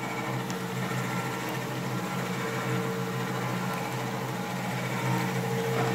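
Automatic shallot-frying machine running: its motor-driven stirring paddle gives a steady hum with a constant whine, over the sizzle of shallots frying in a tank of oil.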